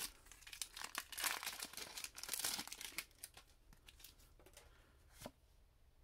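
Foil Pokémon Celebrations booster pack wrapper crinkling and tearing as it is opened by hand. The rustling is dense for the first three seconds, then thins out, with one sharp click about five seconds in.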